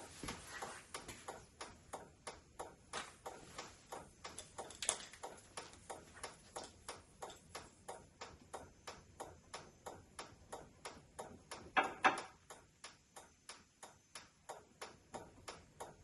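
The pickup's turn-signal flasher ticking evenly, about three ticks a second. There is a short, louder rattle about twelve seconds in.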